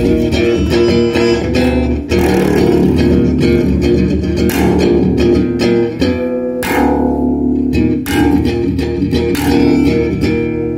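Electric bass guitar played through a small Oranye combo amplifier: a run of plucked notes in the low register, some left to ring.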